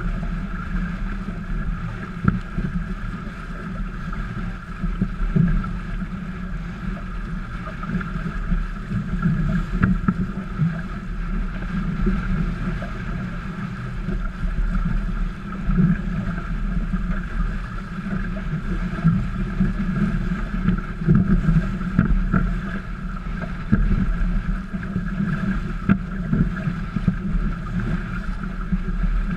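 Water rushing and splashing along the hulls of a Tramp trimaran sailing at speed, surging in loudness, with wind buffeting the microphone.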